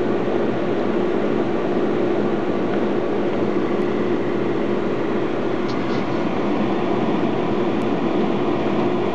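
Steady mechanical background hum, with a couple of faint ticks about six seconds in.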